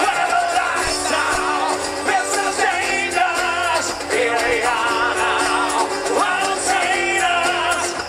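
Live band music through an open-air stage PA: a voice singing a melody over an upright double bass.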